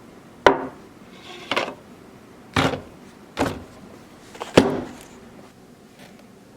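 Five sharp knocks about a second apart, each dying away quickly.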